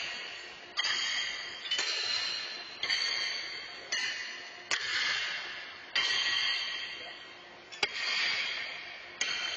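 Steel horseshoes clanging against the steel stakes on several courts, a sharp metallic clang about once a second, each ringing on and fading over about a second in the big hall.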